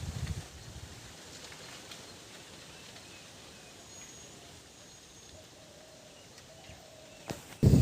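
Quiet rural outdoor ambience with a few short, faint bird calls and chirps. About seven and a half seconds in, a loud low noise starts abruptly.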